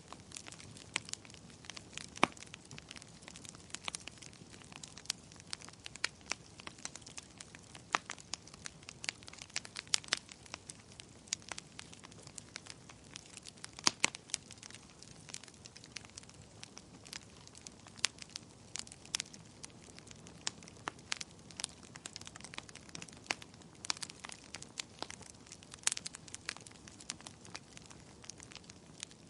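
Wood fire crackling in a fireplace: irregular sharp pops and snaps over a soft steady hiss, with a few louder pops now and then.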